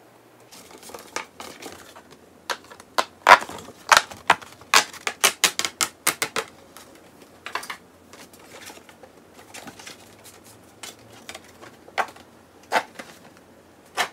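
Stiff paper being handled and a page torn from a recipe booklet: a quick run of sharp crackles and snaps, densest in the first half, then scattered rustles and clicks as the sheet is peeled and handled.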